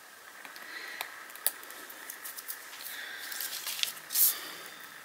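Soft rustling and small ticks of a paper doily being handled and pressed down, with light squishing from a squeeze bottle of liquid glue being applied along its edge. A brief louder rustle about four seconds in.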